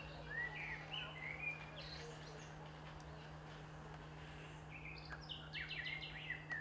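Wild birds singing: short chirps and whistled phrases, then a quick run of repeated notes near the end, over a steady low hum.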